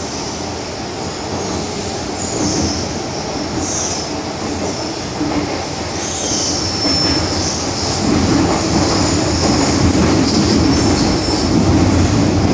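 MTR M-Train electric multiple unit heard from inside the passenger car: a steady running rumble of wheels on rails, with high wheel squeals now and then, growing louder in the second half.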